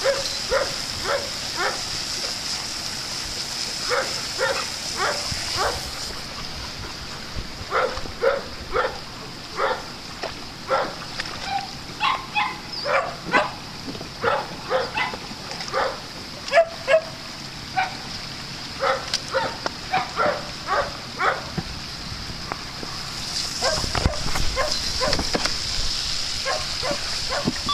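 A dog barking over and over in runs of short barks, about two a second. A water sprinkler's spray hisses steadily under the barking in the first few seconds and again near the end.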